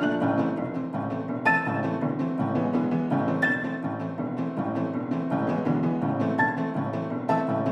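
Background music: piano with bowed strings, notes changing at a steady pace.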